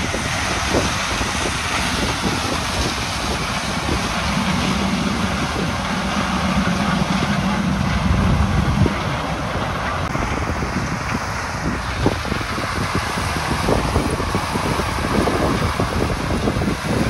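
Claas Lexion 740 combine harvester running as it harvests maize, with wind buffeting the microphone.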